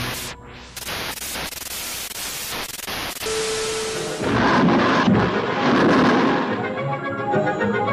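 Television static hiss, broken into several bursts, as a glitch effect over distorted colour bars; it gives way to a steady test tone lasting about a second, then the orchestral film score comes back in loudly.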